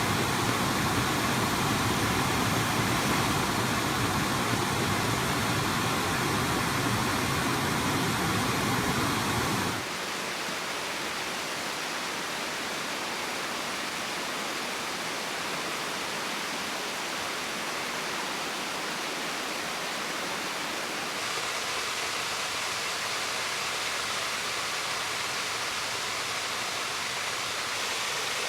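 Waterfall water rushing and splashing in a steady roar. About ten seconds in the sound changes abruptly to a lighter, quieter rush with less low rumble, and it shifts again slightly about twenty seconds in.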